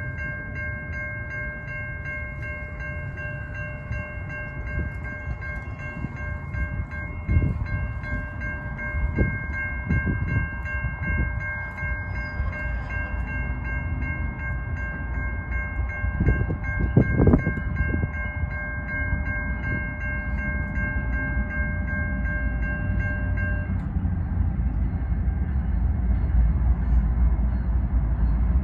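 An approaching Norfolk Southern freight train's locomotive horn sounding one long, steady note for about 24 seconds, then cutting off, over a low rumble that grows louder as the train nears.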